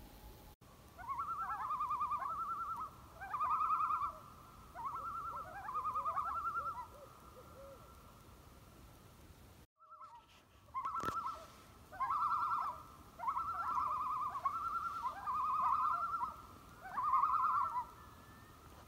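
Common loon tremolo calls: runs of quavering, laughing phrases repeating roughly once a second, with a short break about ten seconds in.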